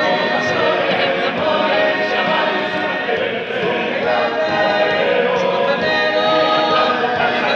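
Cádiz-carnival comparsa choir singing its closing cuarteta: many voices in harmony, loud and steady.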